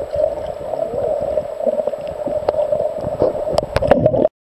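Underwater sound picked up by a submerged camera: a steady rushing hum with scattered clicks and gurgles. It cuts off suddenly near the end.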